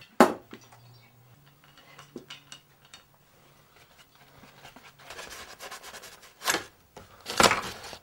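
Handling noises of painting gear: a sharp click just after the start, then faint scrapes and ticks, and a few louder rustling rushes near the end.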